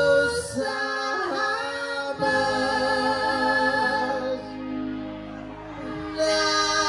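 Live band music with singing, sustained notes over keyboard, dropping to a softer passage about two-thirds of the way through before building back up near the end.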